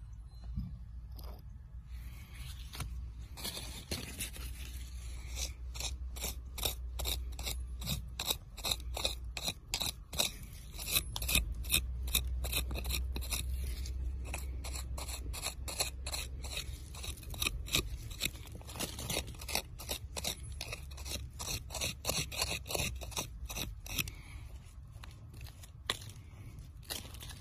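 Coarse, gritty sandy soil being scraped away by hand from around a buried crystal, in quick repeated strokes of about three a second that start about two seconds in and stop near the end.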